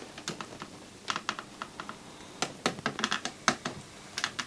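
A quick, irregular run of many light clicks and taps at close range, like small buttons or hard plastic parts being pressed or handled.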